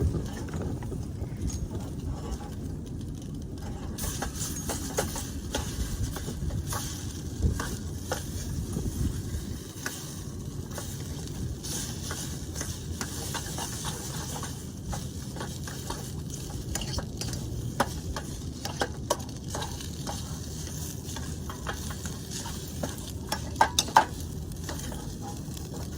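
Leftover spaghetti sizzling in a pot as it heats, stirred with a utensil that scrapes and clinks against the pot. A few sharper clinks come near the end.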